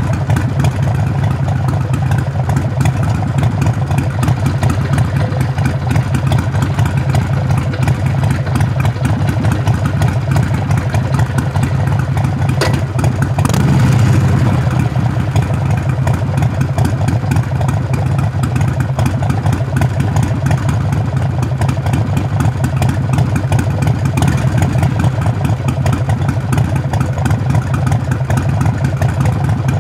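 Harley-Davidson Sportster Forty-Eight's V-twin engine running steadily through its exhaust, with a short rise in throttle about fourteen seconds in.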